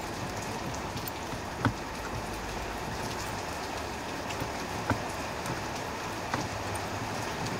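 A few sharp clicks and taps from hands working at the blower motor resistor and its wiring connector behind the glove box, over a steady hiss. The loudest click comes about a second and a half in.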